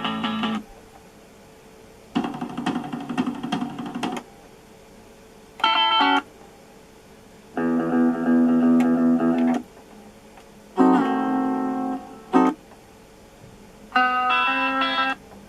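About half a dozen short snippets of music, each lasting up to about two seconds and each a different tune, broken by quiet gaps. This is a CD in an Aiwa CDS-A190 portable stereo being skipped from track to track.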